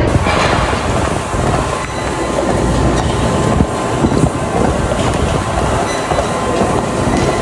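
Treadmill running at walking pace: a steady rumble from the motor and belt, with light, uneven clatter from footfalls on the deck.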